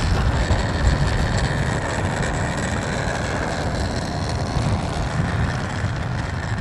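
RC model airplane engine running as the plane rolls along the runway, a faint steady whine under heavy wind rumble on the microphone.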